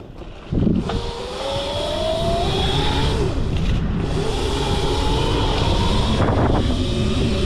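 Modified electric dirt bike riding with its 11,000-watt brushless motor whining, the pitch rising twice as it accelerates, over rumbling wind and tyre noise.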